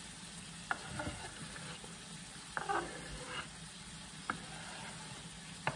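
Chicken pieces frying in oil in a pan with a steady sizzle, while diced onion is scraped off a bamboo chopping board into the pan with a plastic spatula, giving several short scrapes and taps.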